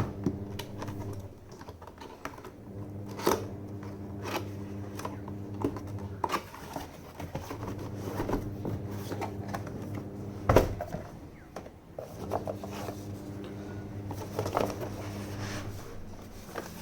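Scattered knocks and handling noises, the loudest about three seconds and ten and a half seconds in, as a keyboard's packaging is handled and opened, over a steady low hum.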